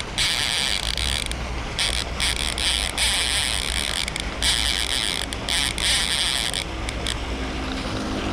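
Baitcasting reel's drag buzzing out in a run of bursts, each lasting about half a second to over a second with short breaks between them, as a hooked Chao Phraya catfish takes line against it.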